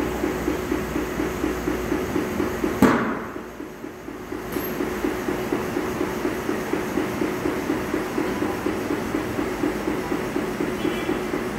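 Tyre-shop machinery running with a steady, fast, rhythmic mechanical clatter, and one sharp loud bang about three seconds in.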